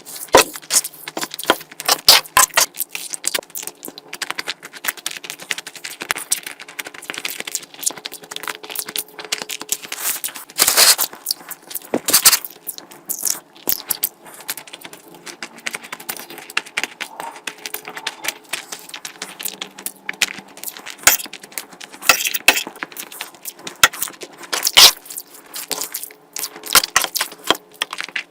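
Close-miked eating sounds: chewing, wet mouth smacks and a dense, irregular run of sharp clicks.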